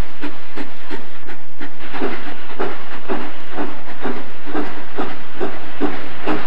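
Steam locomotive working under steam: steady, rhythmic exhaust chuffs, about three a second, over a hiss of steam.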